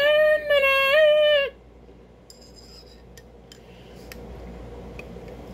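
A high, wavering vocal note, sung in falsetto and held, that cuts off about a second and a half in. Then a few small clicks, and soft sipping through a straw from a glass soda bottle.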